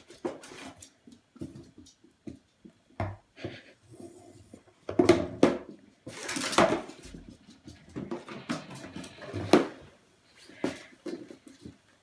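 Cardboard shoe box being pushed and knocked about on a laminate floor by a Samoyed puppy: irregular scrapes, bumps and knocks, with a few longer scuffs about halfway through.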